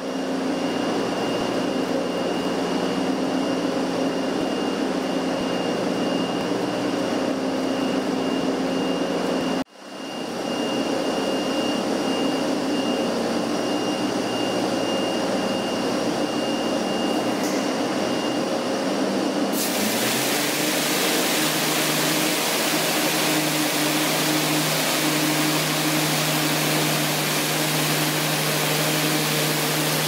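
Steady hum and whine of manure bar-screen separator machinery, cutting out for a moment about a third of the way in. About two-thirds through, a loud, steady hiss of water spray starts, with a deeper hum under it, as the screen is washed.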